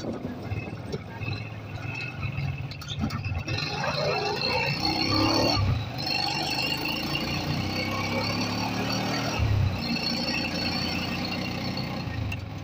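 Motorcycle engine running during a ride, with a steady high-pitched squeal over it from about three and a half seconds in that breaks off briefly twice.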